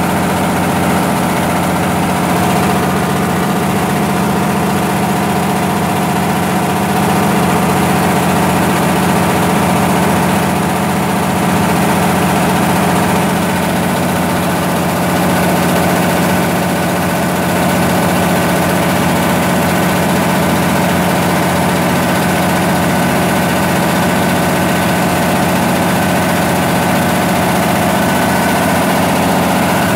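Cummins 6B inline-six diesel engine of a 100 kW generator set running steadily at constant speed, a loud even hum with no change in pitch.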